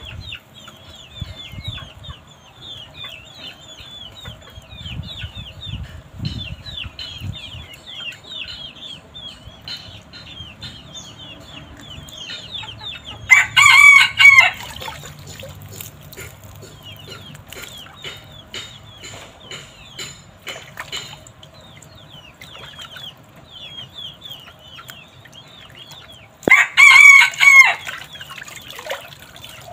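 A rooster crows loudly twice, about thirteen seconds apart, each crow short and shrill. Thin, high, falling chirps from other birds go on between the crows.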